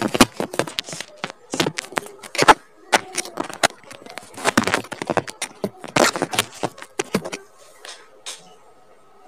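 An irregular run of sharp clicks and taps of hard objects that stops about seven seconds in, followed by a faint steady hum.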